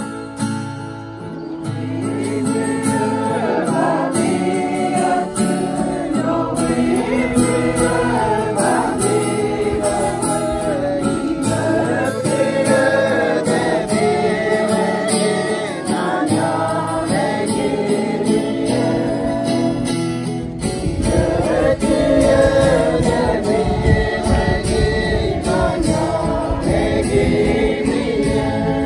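A group of voices singing a hymn together, accompanied by a strummed acoustic guitar. About two-thirds of the way through, a low rumble joins in under the singing.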